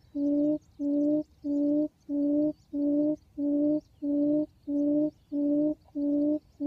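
Recorded quail call played as a trapping lure: a short, low pitched note repeated evenly, about one and a half times a second, with machine-like regularity.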